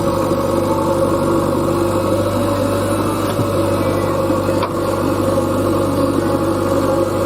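Heavy-machinery diesel engine running steadily at low revs, a constant low hum, with a single short click about four and a half seconds in.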